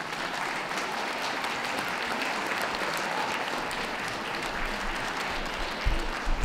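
Audience applauding steadily, with two brief low thumps near the end.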